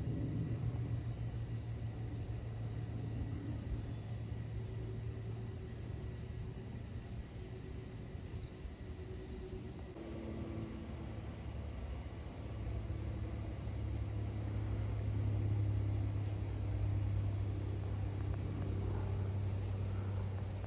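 Low, steady sound of a distant jet aircraft passing overhead, growing louder in the second half. Insects chirp in a steady high pulse of about two or three a second.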